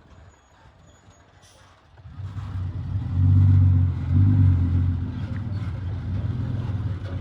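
A heavy vehicle's engine comes up about two seconds in after a quiet start. It is loudest for a second or two, then keeps running steadily.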